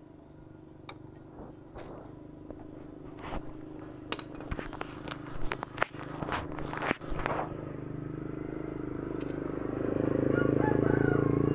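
Metal hand tools and loose parts clinking and knocking against a motorcycle engine's head and block, in scattered strikes that come faster a few seconds in. Near the end a steady low hum rises under them.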